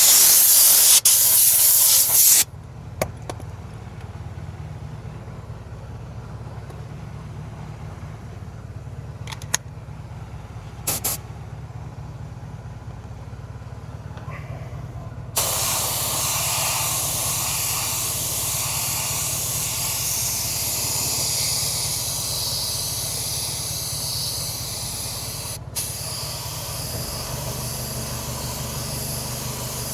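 Wheel refinishing spray: a loud hissing spray burst for about two seconds as the repaired spot is cleaned, then from about halfway a steady hiss of paint being sprayed onto the alloy wheel, broken once briefly near the end. A low steady machine hum runs underneath.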